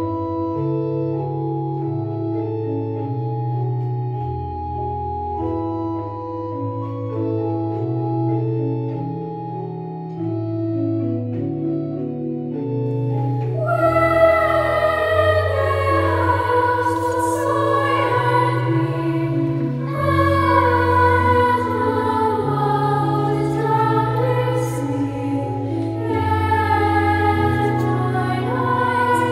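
Organ playing held chords over a moving bass line; about fourteen seconds in, a choir of young voices enters singing a hymn verse with the organ accompanying.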